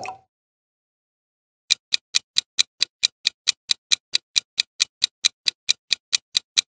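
Clock-ticking sound effect marking a countdown timer, about four even ticks a second, starting about two seconds in. A single short hit right at the start.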